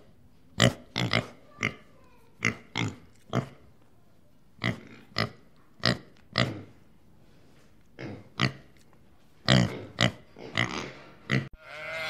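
Pigs grunting: a long run of short, sharp grunts at an uneven pace, with a few brief pauses, stopping abruptly just before the end.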